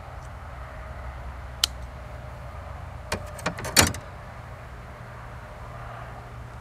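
Eating sounds: a few sharp clicks and smacks, bunched between about one and a half and four seconds in, the last the loudest. A steady low hum runs underneath.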